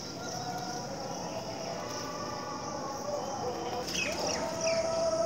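Early-morning outdoor ambience: a steady high insect drone with birds chirping, including a few short falling bird calls about four seconds in. Faint distant held tones sound underneath, one growing louder near the end.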